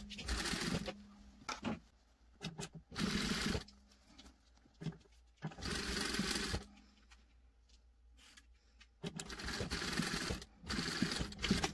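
Industrial sewing machine stitching in five short runs of about a second each, starting and stopping as the stretchy knit is pushed under the foot a little at a time. Small clicks come in the pauses between.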